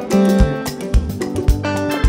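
Live band playing a Ghanaian highlife groove: electric bass lines and guitar over a drum kit, with the kick drum landing about twice a second.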